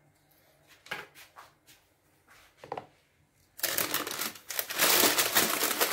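A few soft knocks and taps, then about three and a half seconds in, loud continuous crinkling and rustling as a sheet of sponge cake is handled and laid on.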